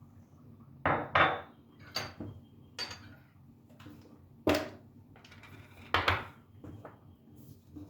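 Dishes and kitchenware clattering: a series of about eight irregular clinks and knocks as things are handled and set down.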